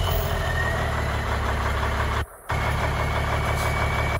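Diesel engine of a 1995 Kenworth T800 dump truck idling steadily just after being started, with a faint high whine. The sound drops out briefly about two seconds in.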